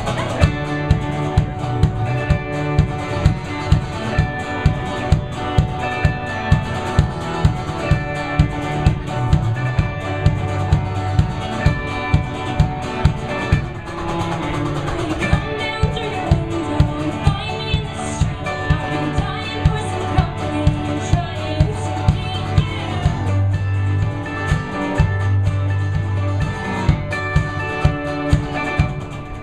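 A live folk band playing an upbeat song: acoustic guitar, cello and electric guitar over a steady kick-drum beat about two to the second, with a woman's singing in places.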